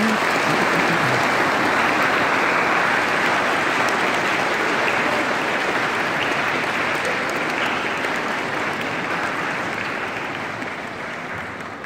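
Audience applauding, a dense steady clapping that slowly tapers off over the last few seconds.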